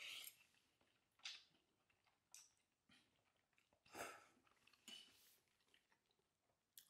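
Faint eating sounds from a mouthful of noodle soup: about seven short, scattered chews, sips and breaths, with perhaps a light touch of utensils on the bowl.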